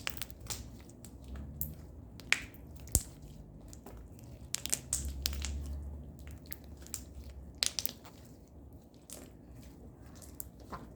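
Yellow slime being squeezed and worked in the hands, making irregular crackling, popping clicks.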